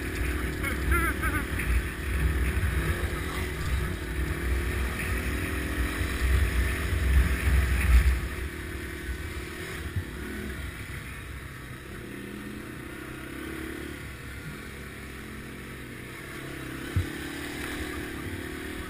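Dual-sport motorcycle engine running along a dirt trail, with a heavy low rumble for the first eight seconds or so, after which the sound drops and runs quieter and steadier. A single short knock sounds near the end.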